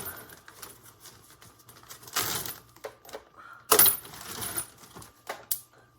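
Spent brass pistol cartridge cases, .45, clinking and clattering as they are dropped into a jar. They go in with scattered small clicks and two louder clattering spills, one about two seconds in and a stronger one near four seconds.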